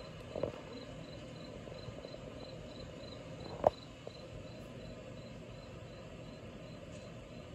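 An insect chirping steadily at a high pitch, about three chirps a second. A single sharp knock sounds about three and a half seconds in.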